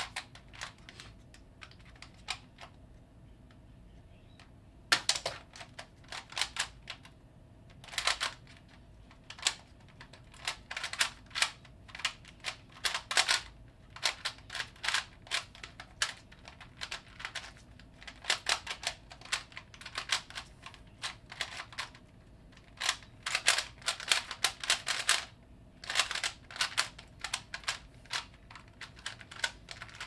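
3x3 Rubik's cube being turned rapidly with one hand: quick runs of plastic clicks as the layers snap round during a speedsolve. There is a short lull about three seconds in before the turning picks up again about five seconds in.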